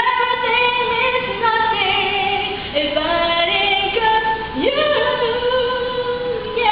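Music with a high female voice singing a melody in held notes that step up and down in pitch.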